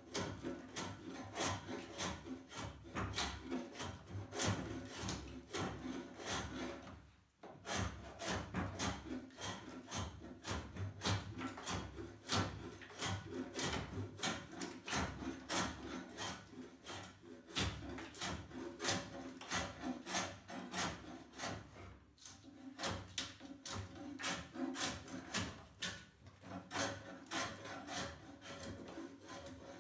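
Hand tool scraping bark off a forked oak branch in quick repeated strokes, with a brief pause about seven seconds in.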